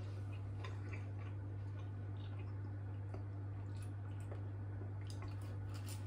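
Faint chewing with small wet mouth clicks as a Yorkshire pudding is eaten by hand, over a steady low electrical hum.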